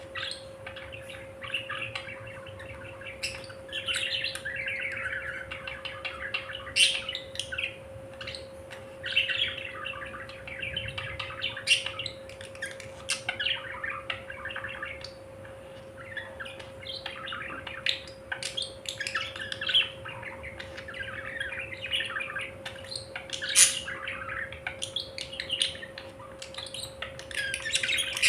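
Budgerigars chattering and warbling continuously, with frequent sharp chirps, over a steady hum.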